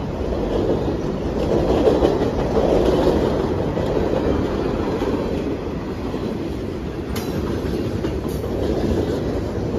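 Freight train cars rolling past at speed, a steady rumble of wheels on rail, with a couple of faint sharp clicks near the end.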